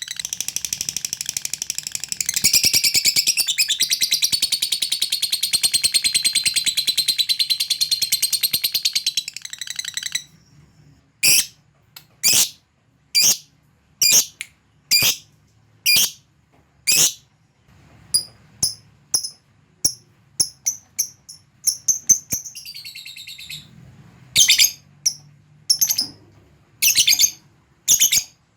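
Lovebird giving a long, rapid, high chattering trill (the 'ngekek' prized by lovebird keepers) for about ten seconds, which stops abruptly. Then come single sharp chirps about once a second, with a brief chatter about two-thirds of the way through.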